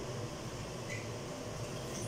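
Steady hiss of a lit gas stove burner heating a pot, over a constant low hum.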